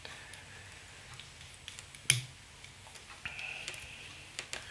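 Faint handling sounds of fly tying at a vise: a few soft ticks and a thin rustle of thread being worked, with one sharp click about two seconds in.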